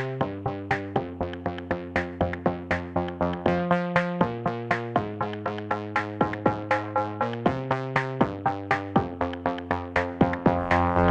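Instrumental background music: a steady run of short plucked-sounding synth notes, about three a second, over changing chords.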